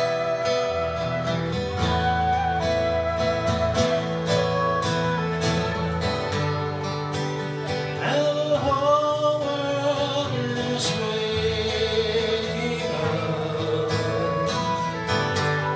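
Instrumental break in a slow folk-country song: acoustic guitar picking under a sustained, wavering melodic lead line.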